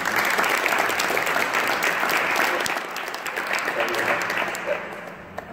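Audience applauding, the clapping fading away over the second half.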